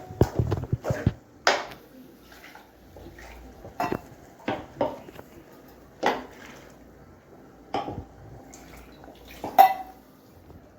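Metal spoon knocking and scraping against cookware as ground masala paste is added and stirred into chicken in a pan: a quick run of clinks at first, then single knocks every second or two, the loudest near the end.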